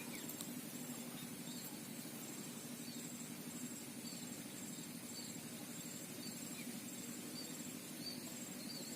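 Outdoor ambience: a high insect trill that comes in regular pulses, with small repeated chirps over a steady low background.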